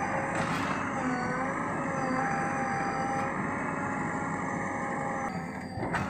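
JCB 3DX backhoe loader's diesel engine running under load as the backhoe arm digs, with a steady whine that dips and rises slightly as the hydraulics work.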